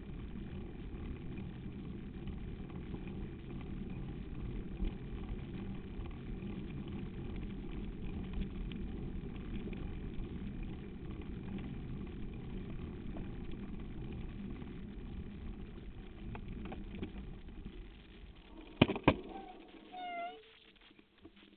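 Steady low rumble of wind and riding noise on a camera carried on a mountain bike crossing hard desert sand. Near the end come a few loud knocks, the rumble drops away, and a short high squeaky call dips and rises.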